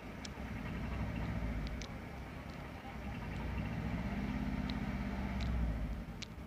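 Low, steady rumble of an engine running. It swells about a second in and again for a few seconds near the end, with a few faint sharp clicks scattered through it.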